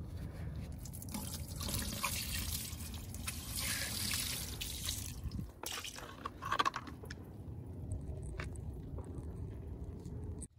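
A wet rag scrubbing a wet alloy wheel, with water dripping and splashing, and a few sharp clicks a little past the middle.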